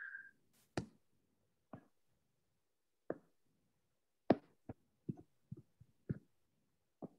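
About ten light, sharp taps of a stylus on a tablet screen, spread irregularly and coming more often in the second half, the sharpest about four seconds in.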